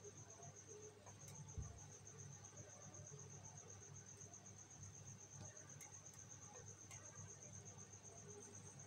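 Near silence: a faint, steady, high-pitched pulsing trill runs throughout over a low hum, with one soft thump about one and a half seconds in.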